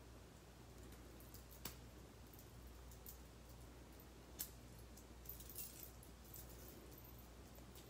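A few faint clicks and clinks from the metal links and end piece of a Herm Sprenger prong collar being handled, the clearest about four seconds in.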